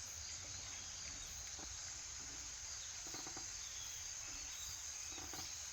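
Autumn crickets chirring steadily in a continuous high-pitched trill, with a few faint low soft sounds now and then.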